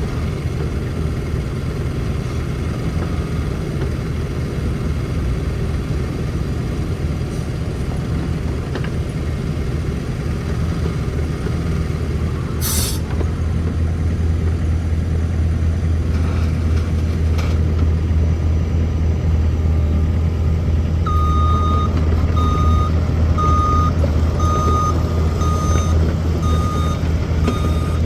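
Wacker-Neuson EZ53 mini excavator's diesel engine running steadily, getting a little louder about halfway through, with a brief hiss around the middle. About three-quarters of the way in, its travel alarm starts beeping, about three beeps every two seconds.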